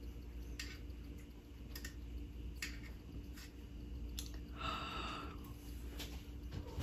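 Slotted spoon sifting through boiled peanuts in hot liquid in a pressure cooker pot: faint scattered clicks of shells and spoon against the pot, with a brief soft wet squish about five seconds in.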